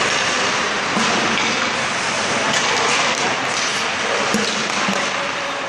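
Ice hockey skates scraping and carving on the ice, with scattered sharp clacks of sticks hitting pucks, in a large indoor rink.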